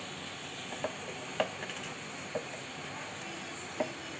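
Risen yeast dough being punched down by hand in a bowl to knock the air out: soft squishing of the dough, with about five short knocks or slaps as the hand presses against it and the bowl.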